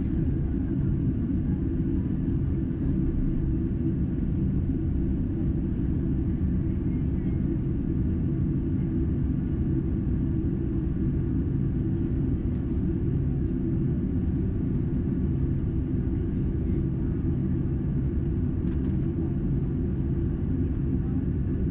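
Boeing 747-8's four GEnx-2B engines at idle, heard inside the passenger cabin as a steady low rumble.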